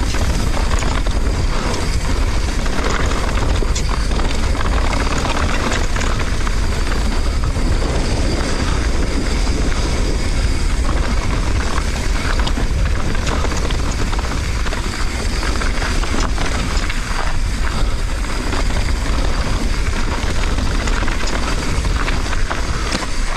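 Wind buffeting the action camera's microphone as a mountain bike rides a dirt trail at speed, with the tyres rolling over the ground and the bike rattling in scattered clicks.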